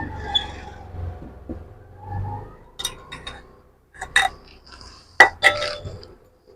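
Metal kitchen vessels and a strainer clinking and knocking while boiled milk is strained. A few sharp clinks come in the second half.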